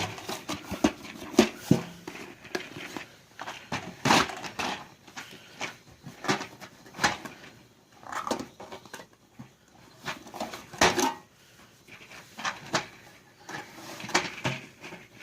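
Ammunition boxes and loose cartridges being packed back into an ammo can: a steady run of irregular clinks, rattles and knocks.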